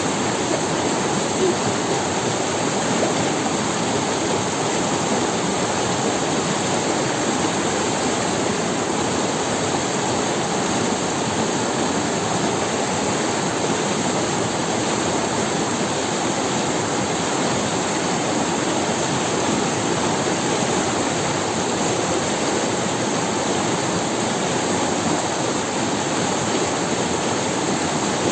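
Forest river running over stones: a steady rush of flowing water.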